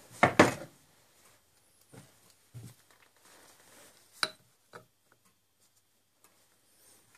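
Metal lathe headstock parts handled on a workbench: a loud clatter of knocks just after the start, a few light knocks, then a sharp click about four seconds in as the end cover is set onto the bearing housing.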